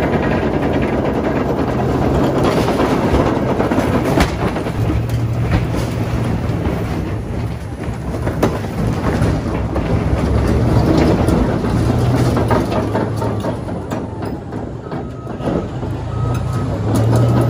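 Caterpillar D11 bulldozer's V12 diesel running under load, its engine note shifting now and then, with the steel tracks clanking and a run of sharp knocks and crunches as the school bus's body is crushed.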